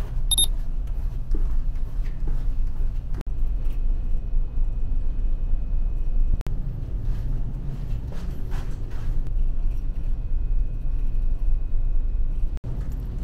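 Loud low rumble inside a ferry in rough weather, with light knocks and creaks.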